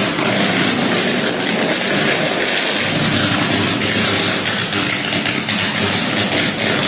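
Overhead electrical wire short-circuiting and arcing, wet from rain: a loud, steady crackling buzz.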